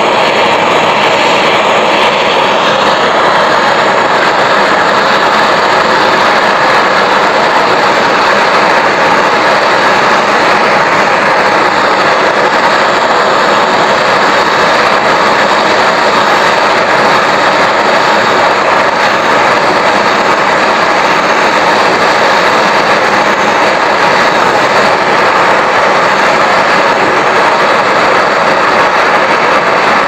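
Small butane brazing torch burning with a steady, loud hiss as its flame heats the aluminium panel of a refrigerator freezer box for brazing.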